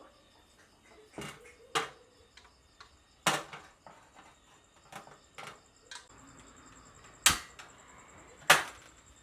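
Irregular sharp knocks and clatters of cooking gear being handled, five of them loud, with smaller clicks in between, over a faint steady high-pitched hum.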